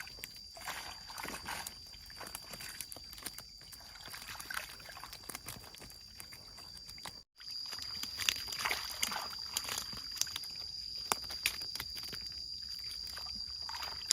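Water sloshing and splashing with many small irregular clicks, under a steady high-pitched insect drone. The sound breaks off for an instant about seven seconds in and resumes a little louder.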